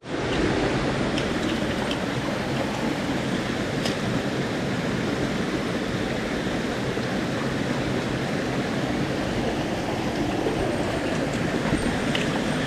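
Mountain stream rushing steadily over rocks, with a few faint clicks.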